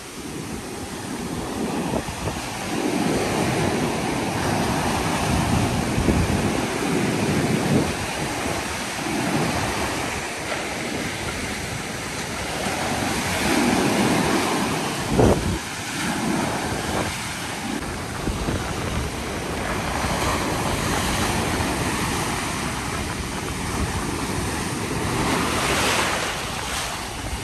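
Ocean surf breaking and washing in, surging every few seconds, with wind buffeting the phone's built-in microphone.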